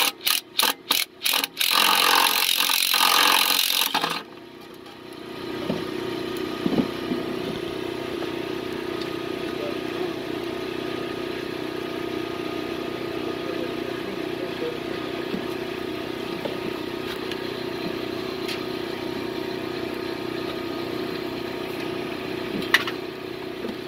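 MIG welder arc crackling in about six short stabs, then one continuous weld of about two and a half seconds that cuts off about four seconds in. It is building up weld on a broken exhaust manifold bolt stub in the cylinder head so the stub can be extracted. After that only a steady mechanical hum remains.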